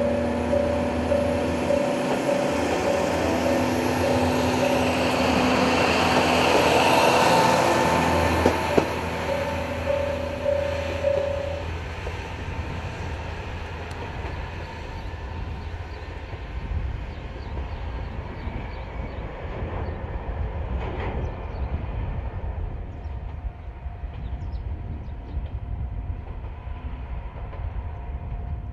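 Kanto Railway KiHa 2200-series diesel railcar running on the line, its engine note rising and loudest about seven seconds in, then fading to a low distant rumble. A warning bell pulses about twice a second and stops about twelve seconds in.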